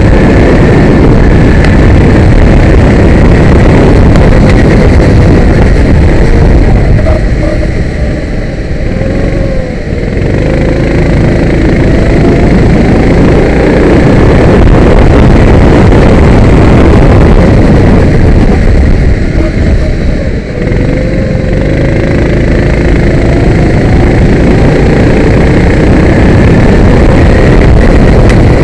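Kart engine heard onboard at racing speed, loud and steady, easing off twice, about 8 and 20 seconds in, as the driver lifts for corners, then rising in pitch again as it accelerates away.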